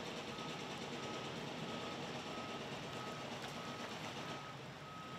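Reversing alarm beeping a single high tone, about every two-thirds of a second, over a steady low background noise.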